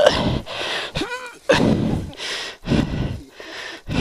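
A person panting hard in short, rapid breaths from the strain of rocking and pulling a dirt bike stuck in mud, with a brief voiced grunt about a second in.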